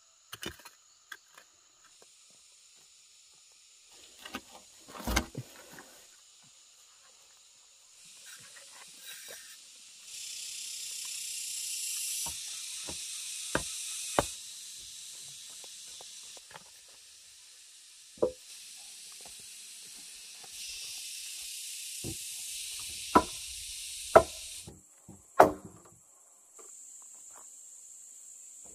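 Insects shrilling steadily in the background, changing abruptly in loudness from shot to shot. Scattered sharp knocks and thuds from hand-tool work on the wooden house frame come through it, the loudest about five seconds in and near the end.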